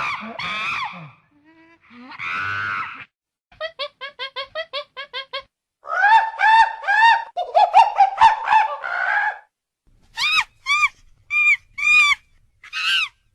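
A monkey calling in a series of screeches and chatters: a couple of harsh calls, then a quick run of short calls about five a second, a louder stretch of rapid arching calls, and near the end a few separate calls about half a second apart.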